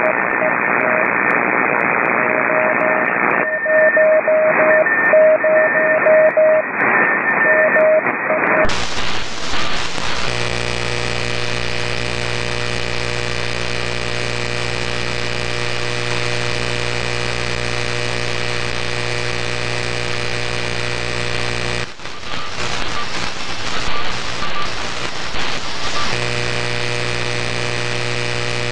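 Shortwave receiver audio of a Flex 5000A on 6 metres, full of power line interference. It opens as narrow-band hiss with a tone keyed on and off. About nine seconds in the sound suddenly widens into a steady electrical buzz of stacked hum lines, which breaks into ragged hiss for a few seconds near the end before the buzz returns.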